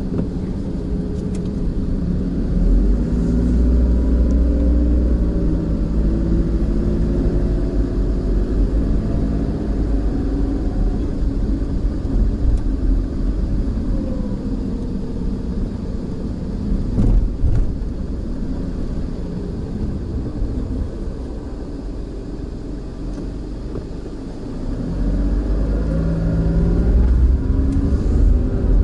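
Car engine and road noise heard from inside the cabin as the car drives slowly, the engine note rising and falling with speed. It quietens for a few seconds, then builds again with acceleration near the end.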